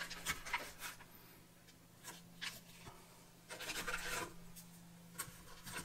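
Foil ration packet crinkling and rustling as hands pull biscuits out of it, with a few short scratches and taps of the biscuits on paper. The longest rustle comes a little past halfway.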